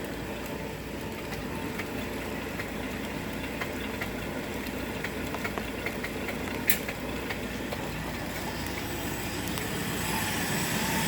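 The 4.9-litre straight-six of a 1974 Ford F-250 idling steadily just after a cold start, still cold and running rich. A single sharp click comes about two-thirds of the way through, and the engine gets a little louder near the end.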